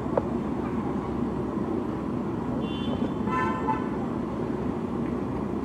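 Steady street traffic noise with a vehicle horn honking briefly about three seconds in, just after a fainter high beep.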